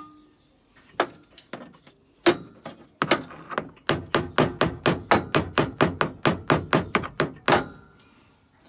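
Hand tools knocking and clicking on the car's metal as bolts are worked: a few single sharp knocks, then an even run of sharp clicks about five a second for about four seconds.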